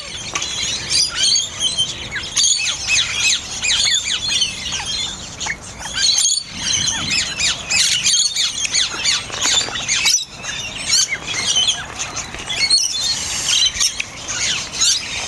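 A dense chorus of many birds calling, quick chirps and squawks overlapping without a break.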